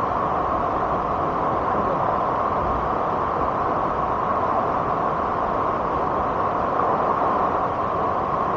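Steady roar of rushing water from a waterfall, an even noise that holds at one level throughout.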